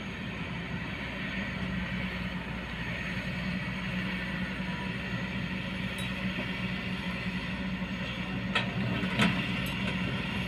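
Kobelco hydraulic excavator's diesel engine running steadily under working load as the machine dumps, swings and digs. Two sharp clanks about half a second apart near the end as the bucket strikes rocky ground.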